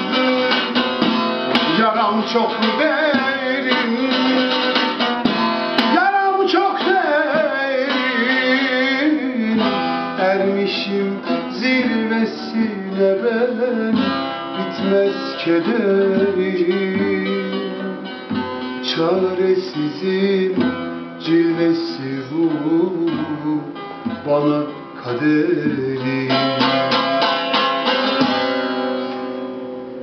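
A long-necked bağlama (Turkish saz) strummed and picked in a continuous run of notes, with a man singing along.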